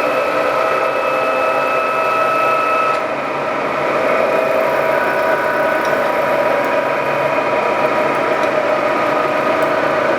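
Lagun FVA-5LA geared-head vertical milling machine running under power, a steady mechanical hum with gear whine tones; the pitch pattern of the whine changes about three seconds in.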